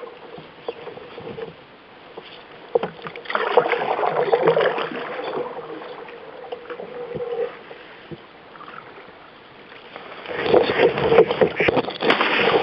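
Canoe moving on a river: paddle strokes and water washing against the hull, louder in two spells, from about three seconds in and again from about ten seconds in.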